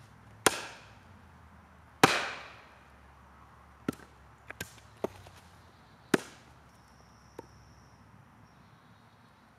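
Heavy Aranyik cane machete chopping into a log on a chopping block: two hard chops about a second and a half apart, the second the loudest with a short ring-out, then a few lighter knocks of wood and blade and another sharp chop about six seconds in.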